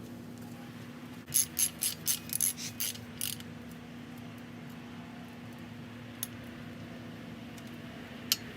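A quick run of about eight sharp ratcheting clicks, then two single clicks later on.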